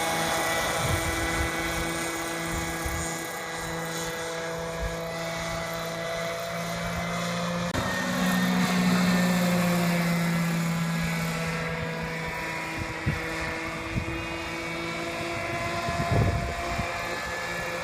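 Large-scale RC Bell 205 Huey helicopter flying, its Zenoah G26 two-stroke petrol engine and rotors running steadily. The sound swells and its pitch shifts about eight seconds in, then eases off, with a few short thumps near the end.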